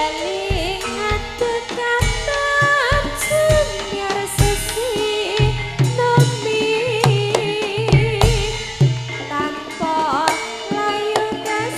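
Live Javanese band music: a woman sings a wavering melody through a microphone over hand drums and struck tuned percussion.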